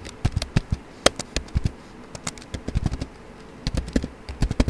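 Typing on a computer keyboard: quick runs of keystrokes, with a sparser pause of about a second and a half in the middle, then another fast burst near the end.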